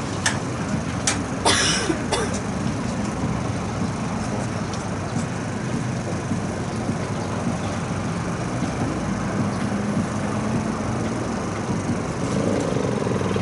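Steady murmur of a stadium crowd in the stands, with a few sharp, brief sounds in the first two seconds.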